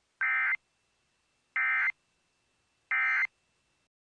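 Three short bursts of warbling digital data tones from an Emergency Alert System's SAME encoder, evenly spaced about a second and a half apart: the end-of-message code that closes the alert.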